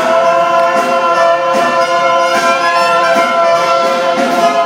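Singing: the last word of the song, "all", held as one long steady note over instrumental accompaniment, cutting off near the end.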